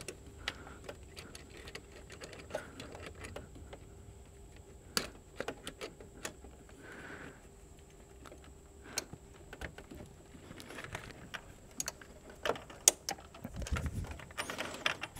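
Quiet, irregular clicks and light metallic ticks from a spring hose clamp and long-reach hose clamp pliers being handled and worked onto a radiator hose.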